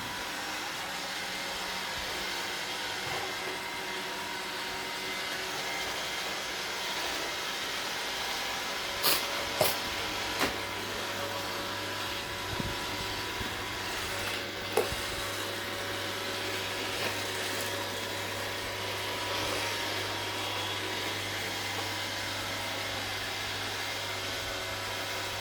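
iRobot Roomba 780 robot vacuum running, a steady whirring of its motors and brushes, with a few sharp knocks around the middle.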